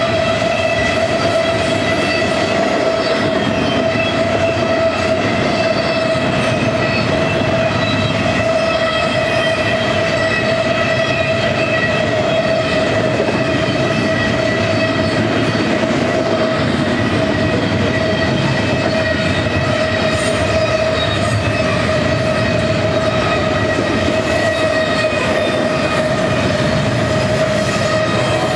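Double-stack container train's well cars rolling past: a steady rumble with a constant high-pitched squeal held over it.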